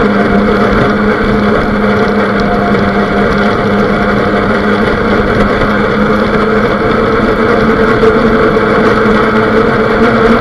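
RC boat's motor running steadily under way, picked up by a camera mounted on the boat's hull, with a constant hum over the rush of water.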